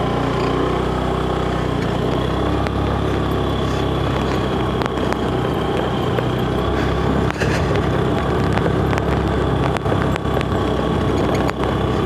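Motorcycle engine running at a steady speed while riding.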